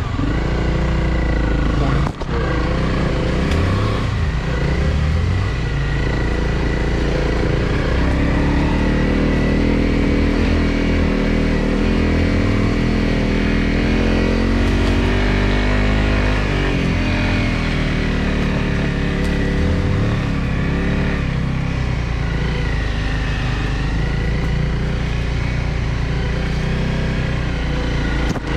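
Honda CRF250L Rally's single-cylinder four-stroke engine running as the bike is ridden, revs rising and falling with the throttle, with a brief dip about two seconds in.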